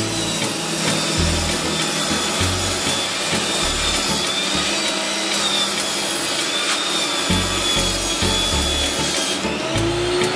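Power tool working on pallet wood, a steady unbroken rasping noise, with music underneath.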